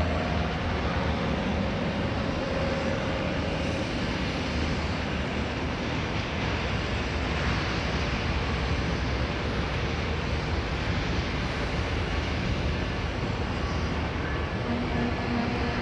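Union Pacific freight train's diesel locomotives rumbling steadily as they approach slowly. Faint steady tones come in briefly near the start and again near the end.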